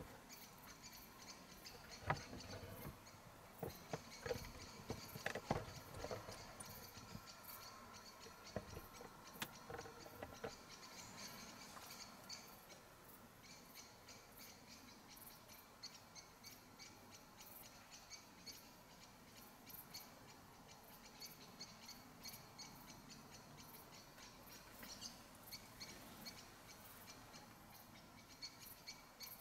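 Quiet dusk forest ambience with faint, scattered bird calls. A few soft knocks and rustles of movement in the wooden high seat come in roughly the first ten seconds.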